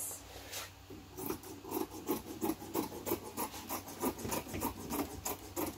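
Scissors snipping through fabric along a pinned line: a quick, even run of crisp cuts, about four a second, starting about a second in.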